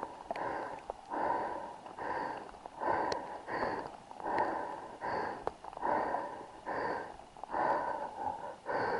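A man breathing hard and fast, out of breath, in regular noisy breaths about one and a half a second.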